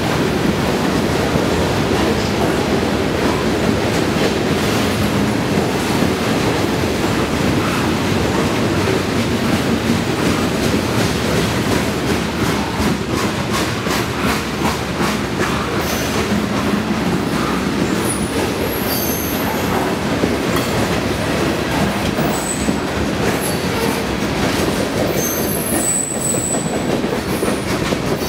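Freight train's tank cars and covered hopper cars rolling past: a steady rumble of steel wheels on rail with clickety-clack over the joints, and brief high wheel squeals in the second half.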